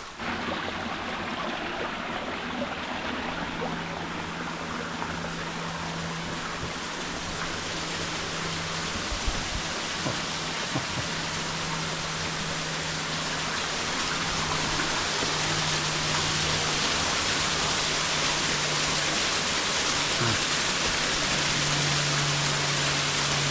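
Steady rushing of running water from a small canyon stream spilling over rocks, growing louder about halfway through.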